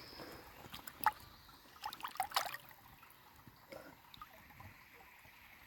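Small splashes and trickling water as a piece of geode is rinsed by hand in shallow creek water, with a cluster of sharper splashes about two seconds in.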